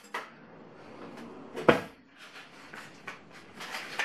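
Kitchen cabinet being opened and rummaged through: a sharp knock a little under two seconds in, with lighter clicks and knocks around it.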